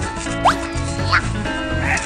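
Playful background music with a steady beat, with two quick upward-gliding comic sound effects laid over it.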